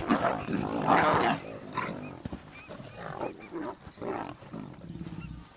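Young lions play-fighting, growling in rough bursts that are loudest about a second in, then softer, shorter calls.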